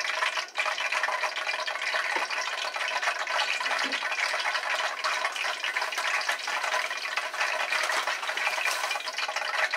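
Cooking oil sizzling steadily in a frying pan, a dense fine crackle.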